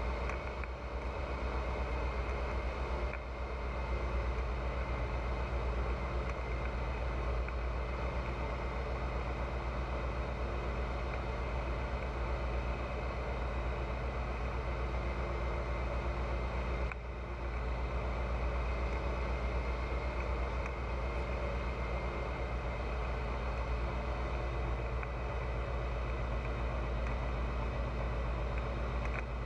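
Pipistrel Virus light aircraft in flight: a steady engine and propeller drone inside the cockpit, with a brief dip in level twice.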